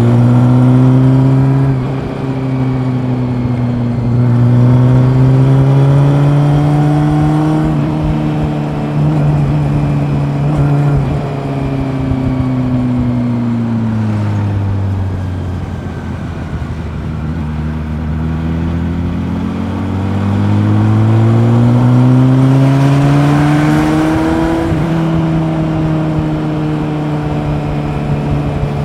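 Honda CB400 Super Four's inline-four engine under way: the revs climb near the start and hold, fall away through the middle as the throttle eases off, then rise again and hold toward the end.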